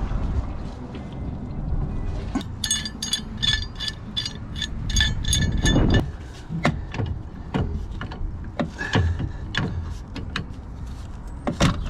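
Ratchet spanner clicking in a quick, even run for a few seconds as a fastener is worked, then scattered metallic clinks and knocks of tools and parts.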